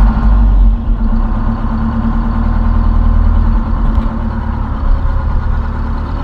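Detroit Diesel 4-71 two-stroke inline-four diesel engine, freshly started and running at a steady idle. It is loudest in the first second, then settles to an even run.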